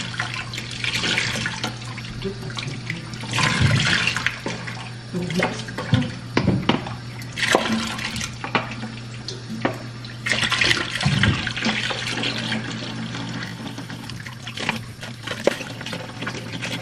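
Water running from a kitchen tap and splashing as humidifier parts are rinsed in the sink, with several sharp knocks of the parts being handled, over a steady low hum.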